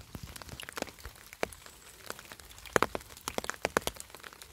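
Irregular crackling and rustling of dry fallen leaves as they are shifted and pressed on the ground, with a cluster of louder crackles a little under three seconds in and more over the following second.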